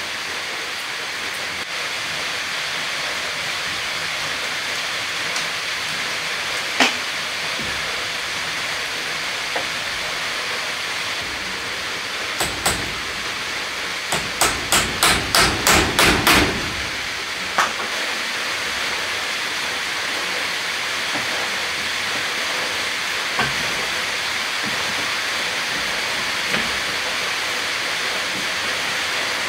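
Hammer driving nails into wooden wall-cladding boards: scattered single blows, and a quick run of about eight strikes in the middle. A steady hiss runs underneath.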